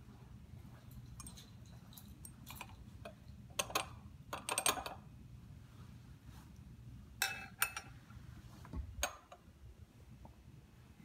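Faint, scattered clicks and clinks of lab glassware being handled on a bench, a glass pipette among it: a cluster of sharp clinks about four seconds in, two more past seven seconds, and a low bump with a click near nine seconds.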